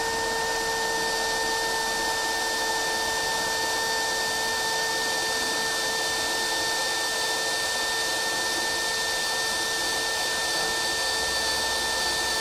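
Cordless drill running at a steady speed in low gear, a cheap Ryobi 3/16-inch twist bit coated in cutting wax boring into quarter-inch-thick steel tubing under heavy pressure. A constant motor whine over the hiss of the bit cutting.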